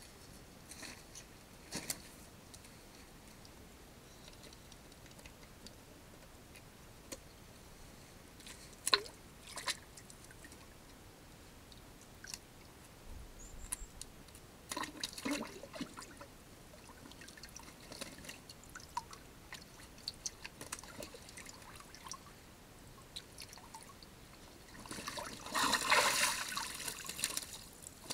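Cinereous vulture bathing in a shallow rock pool: scattered drips and clicks at first, then bursts of splashing water, the longest and loudest near the end.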